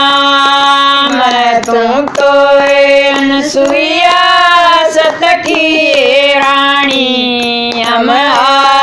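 Women singing a Haryanvi devotional bhajan together in long, drawn-out notes that slide between pitches, with hand claps keeping time.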